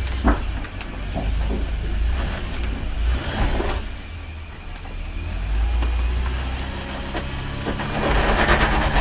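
Off-road 4x4 engine running at low speed on a rocky trail, with a few sharp knocks from the rocks under the vehicle. Its engine note grows steadier and louder near the end.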